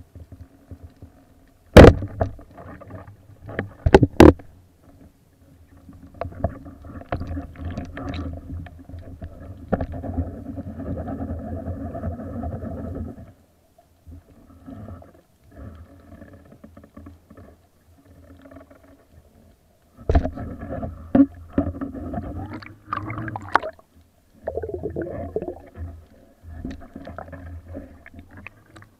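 Band-powered speargun fired underwater: one loud sharp crack about two seconds in, then two quick sharp knocks about two seconds later. After that, stretches of churning underwater noise with a steady low hum start and stop several times.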